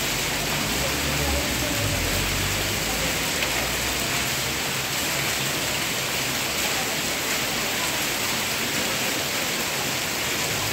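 Heavy rain mixed with hail falling on a flooded road: a steady, dense hiss of downpour, with a low hum underneath in the first few seconds.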